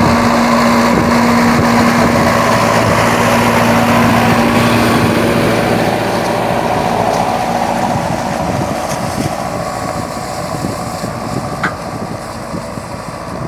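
John Deere 6430 tractor's diesel engine running steadily under load as it pulls a disc ridger through ploughed soil. It passes close, then grows quieter from about eight seconds in as it moves away.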